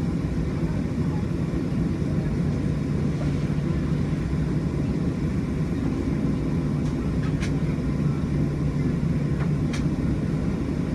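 Steady engine and air noise inside the cabin of a Boeing 737 airliner in flight: an even, low hum without change in level. A couple of faint ticks are heard in the second half.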